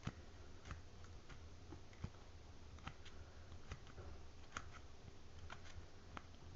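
Faint, irregular small metallic clicks and scrapes of the flint spring screw being turned back into a Zippo lighter's insert.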